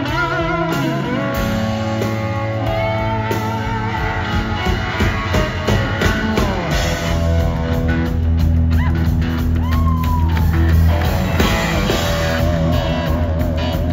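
Live rock band playing loud, with a lead electric guitar sustaining and bending notes over bass and drums.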